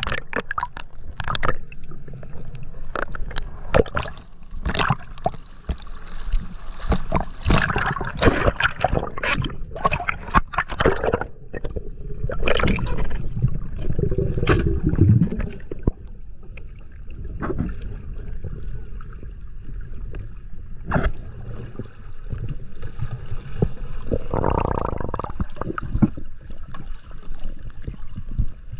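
Muffled underwater sound through a camera housing: a low rumble of moving water with gurgling and many scattered clicks and knocks.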